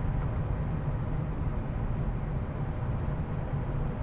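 Steady low rumble of cockpit noise in a Gulfstream G550 on short final approach, with the jet descending through about 150 feet.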